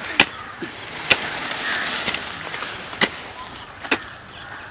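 Four sharp chopping blows of steel hand tools, a machete and a hoe, striking cassava stems and the soil around the roots, spaced about one to two seconds apart.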